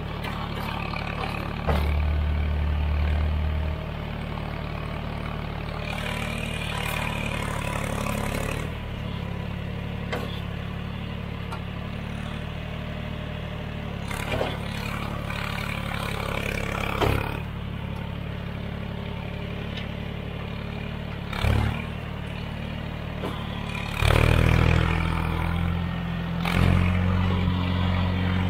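John Deere 1020 tractor engine running steadily under load while its front-end loader bucket pushes through brush. The engine swells louder around two seconds in and again near the end. Scattered knocks and clatter come from the loader and the brush.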